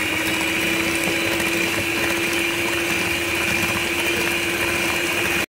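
Turbo electric hand mixer running steadily at speed, its beaters whisking eggs and sugar to a froth in a glass bowl; a steady motor hum with a higher whine, cut off suddenly at the end.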